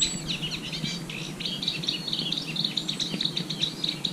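Songbirds singing: a dense, unbroken run of fast, high chirps and trills, with a brief thin whistle right at the start.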